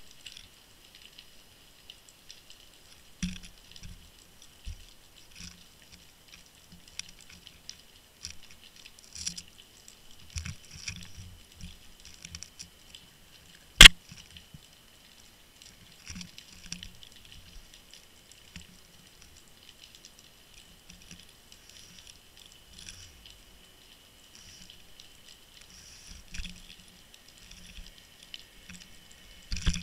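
Sound from an underwater camera housing on the seabed: scattered small knocks, clicks and rattles as water and the rig shift, over a faint steady high hiss. One sharp loud knock about 14 seconds in, as the camera tumbles.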